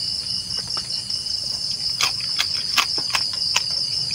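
Crickets trilling steadily at night, a continuous high pulsing chirr. About halfway through, five short sharp clicks come in an even run.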